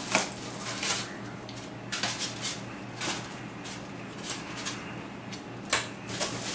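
Packing material being pulled from a shipping box: styrofoam and plastic wrapping handled, giving scattered rustles, scrapes and light clicks.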